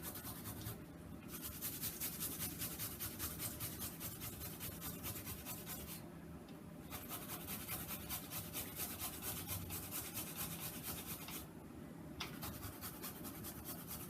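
Fresh ginger rubbed quickly over a hand grater: a steady run of rasping strokes, several a second, with short pauses about a second in, around six seconds and near twelve seconds.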